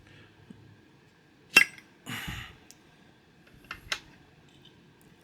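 Metal parts of a Zippo lighter and its fuel canister being handled: one sharp metal click a little over a second in, a short scraping rasp just after, then two lighter clicks near the end.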